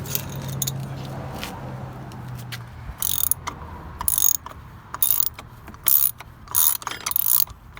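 Socket-wrench ratchet clicking in short strokes, about one stroke a second from about three seconds in, coming closer together near the end. A low steady hum runs underneath in the first couple of seconds.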